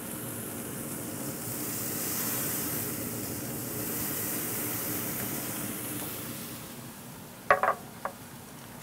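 Marinated chicken breasts sizzling on a hot pellet-grill grate right over the firebox, with the hiss swelling a couple of seconds in and dying down. A brief clink comes near the end.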